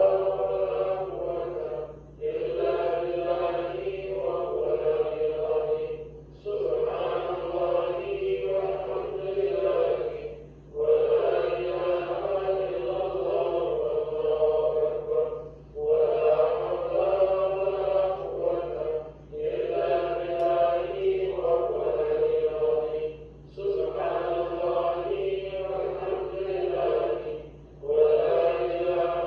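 Congregation chanting dhikr together, the repeated recitation of the names of God, in phrases of about four seconds, each followed by a brief pause. A steady low hum runs underneath.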